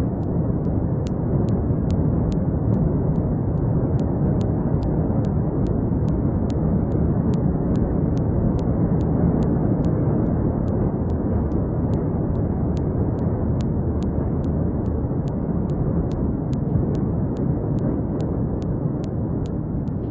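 Steady, deep rumbling noise throughout, with no single sudden blast standing out.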